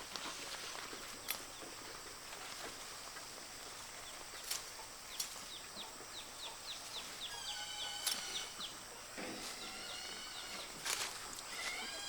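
Poultry calling: a quick run of high chirps about halfway in, then a few longer calls, over outdoor background hiss with occasional sharp knocks.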